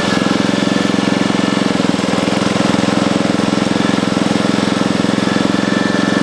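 Portable bandsaw mill's engine running steadily at constant speed, with a fine even pulse and a faint steady tone above it.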